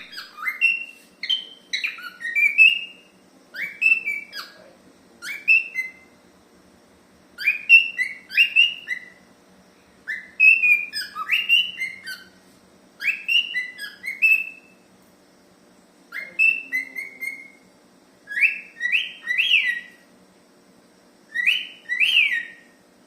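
A cockatiel whistling: short phrases of quick, sharply rising and falling whistled notes, repeated in bursts with brief pauses between them.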